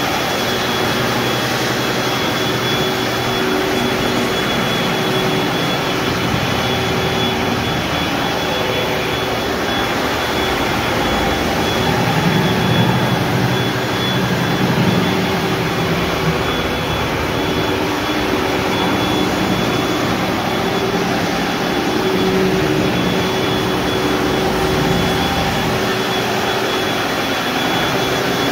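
Compact walk-behind floor scrubbing machine running steadily as it is pushed over a waxed hardwood floor, agitating and lifting the wax: a steady motor hum with a thin high whine, slightly louder around the middle.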